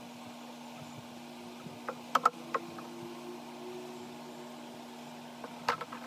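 Hand work on a small wooden drawer: a few sharp taps and clicks of tools against the wood, a cluster about two seconds in and another near the end, over a steady low hum.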